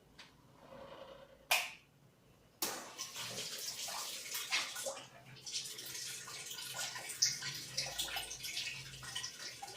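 A sharp knock about one and a half seconds in. From about two and a half seconds in, water runs and splashes steadily as it flows out through the RO purifier's carbon filter.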